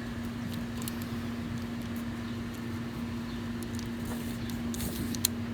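A ratchet strap being handled, giving a few faint clicks of the ratchet and buckle, more of them in the second half, over a steady low hum.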